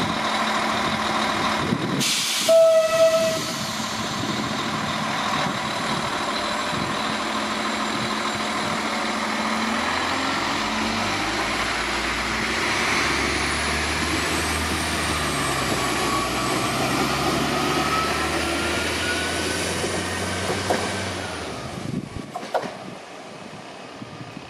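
SA134 diesel multiple unit with its engine running: a short horn blast about two and a half seconds in, then the diesel engine revs up and the train gets under way. The train's noise falls away suddenly about two seconds before the end.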